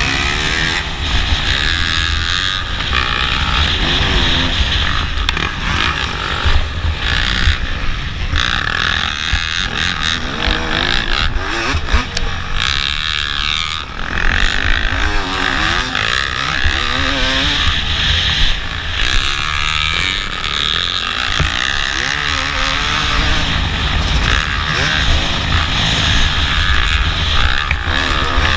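Motocross bike engine revving hard and dropping off again and again, its pitch sweeping up and down through the gears under race throttle. A steady rush of wind on the helmet-mounted camera runs under it.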